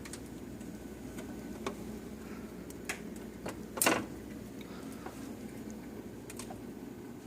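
Light clicks and taps from handling a refrigerator's freezer compartment, over a steady low hum; the loudest tap comes just before four seconds in.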